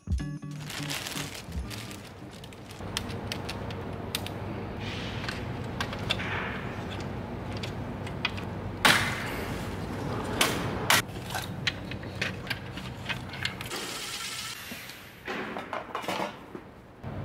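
Hands-on workshop handling noise: a plastic bag rustling, and the plastic intake manifold and metal tools clicking and clinking, with scattered sharp clicks, the loudest about nine seconds in, over a steady low hum.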